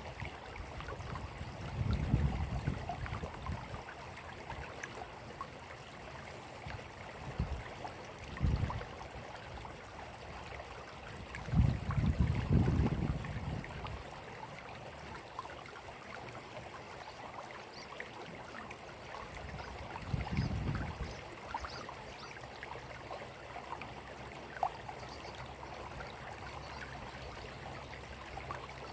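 Water running and trickling steadily, like a small stream. Four dull low rumbles break in, the longest and loudest about halfway through.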